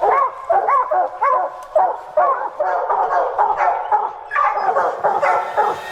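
Several hunting dogs barking and baying without pause, their barks overlapping, at a bear that they hold at bay.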